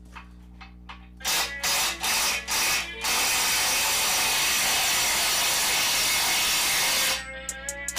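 Cordless impact wrench taking bolts out of an engine's rear mounting plate: four short bursts, then one steady run of about four seconds, then a few more short bursts near the end.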